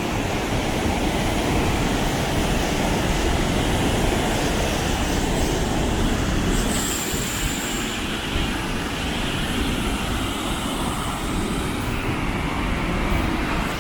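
Steady rush of river water pouring over a dam and waterfall.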